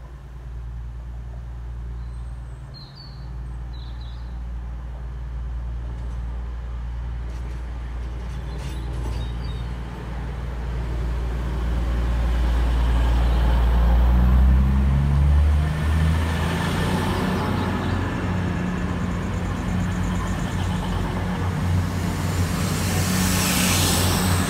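East Midlands Railway Class 222 Meridian diesel multiple unit approaching at speed and passing close. The low steady drone of its underfloor diesel engines grows louder to a peak about halfway through. It then gives way to the rushing of wheels and air as the carriages go by, with a rising hiss near the end.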